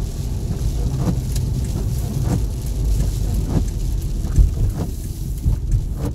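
Steady low road and engine rumble heard inside a Subaru Forester driving in the rain, with the windshield wipers sweeping across the wet glass about once every 1.2 seconds.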